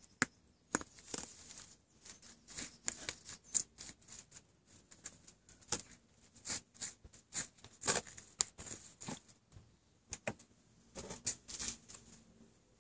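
High-heeled ankle boot crushing cherry tomatoes against paving slabs: an irregular run of short crackles and gritty scrapes as the sole presses and grinds the fruit, with a brief pause about ten seconds in.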